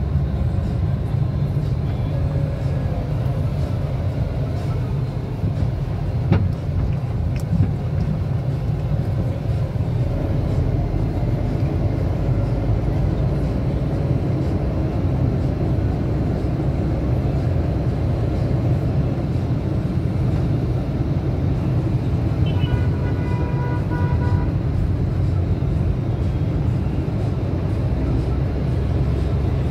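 Steady low rumble of road and engine noise inside a moving car's cabin. A couple of sharp knocks come about six and seven seconds in, and a vehicle horn sounds for about a second and a half roughly two-thirds of the way through.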